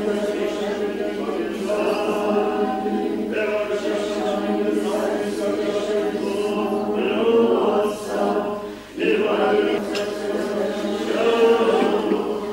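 Several voices chanting together in long held tones that shift every second or two, with a short break about nine seconds in.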